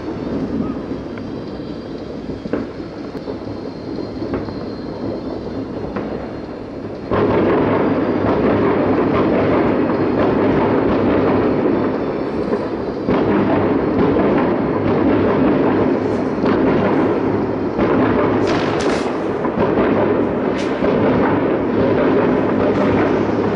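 Distant fireworks salute: a continuous rumble of many bursting shells echoing together, which gets louder about seven seconds in. In the later part single sharper bangs and crackles stand out from it.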